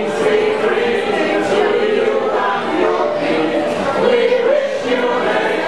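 A choir of carol singers singing a Christmas carol together, many voices holding sustained notes.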